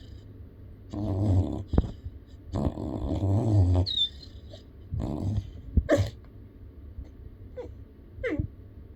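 Yellow Labrador puppy snoring in its sleep: three long snores, one about every two seconds, followed by a few short squeaks in the last few seconds.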